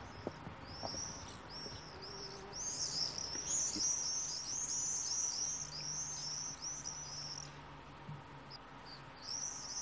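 Bird singing a fast run of high, repeated chirps, which stops about three-quarters of the way through and starts again near the end.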